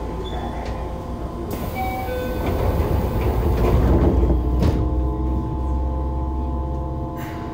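Yokohama Municipal Subway 3000A train running, heard aboard: the steady whine of its Mitsubishi GTO-VVVF traction inverter and motors over the rumble of wheels on rail. The rumble grows louder toward the middle, and two sharp knocks come in the second half.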